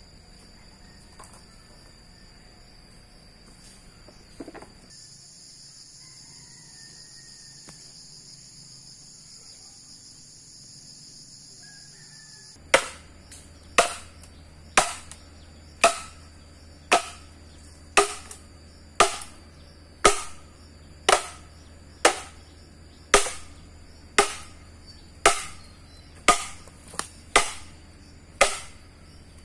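Insects trill steadily at a high pitch. About halfway through the trill stops and a run of sharp chopping blows begins, about one a second, each ringing briefly as it dies away.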